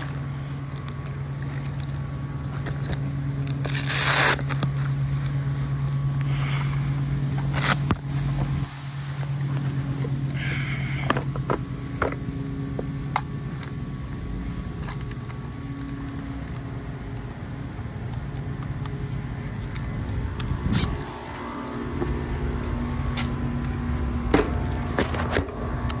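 Hand tools and bits clicking, scraping and rattling as a tool bag is rummaged through and a plastic driver-bit case is opened, over a steady low hum of running machinery.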